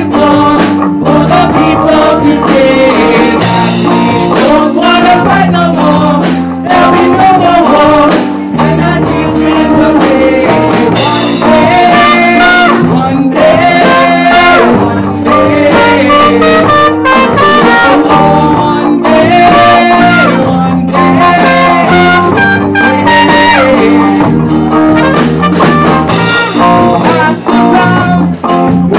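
Live band playing a song: drum kit, electric guitar and trumpet with sung vocals.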